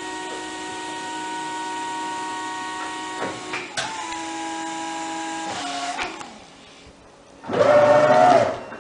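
Jungheinrich electric reach truck's hydraulic pump motor whining steadily as the mast and forks move, shifting to a different pitch about four seconds in and stopping about six seconds in. A louder, wavering sound lasting about a second follows near the end.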